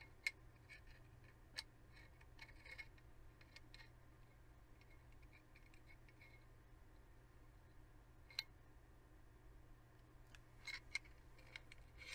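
Quiet, scattered metallic clicks and taps of a steel locking lug being fitted into a Marlin lever-action rifle's receiver by hand, with a sharp click about a quarter-second in, a few more through the middle, and a small cluster near the end.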